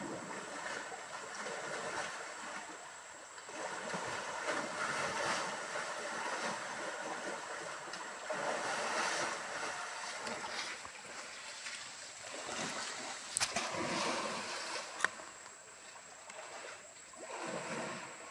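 Fast-flowing muddy stream rushing, with elephants splashing as they wade and shove in it. Two sharp knocks about a second and a half apart, a little past the middle, are the loudest sounds.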